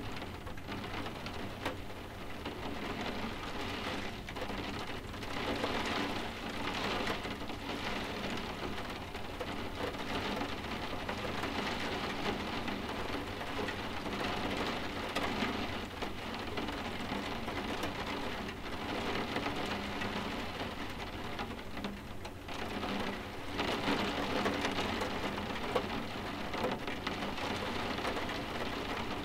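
Steady rain falling on windows, swelling heavier now and then.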